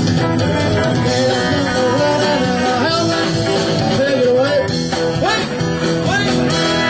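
Blues-style rock and roll music played on guitar, with sliding, bent notes over a steady backing.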